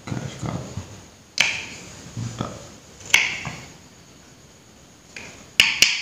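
Knife knocking on a small wooden board while chopping a piece of kencur (aromatic ginger root): a few sharp knocks a second or two apart, with a quick pair near the end, and softer thuds between.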